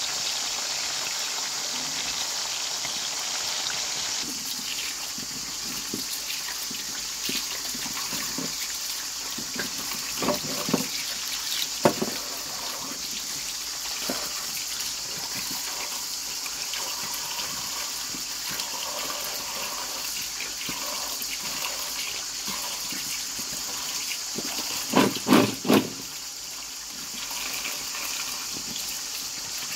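Chicken pieces sizzling in a frying pan for the first few seconds, then tap water running onto unripe green cherry plums in a stainless steel colander as hands turn them over. A few louder knocks come near the middle and three more close together near the end.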